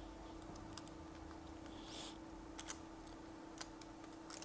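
Faint, scattered clicks and light taps of small tools and parts being handled while an iPhone 6 is taken apart, over a steady electrical hum.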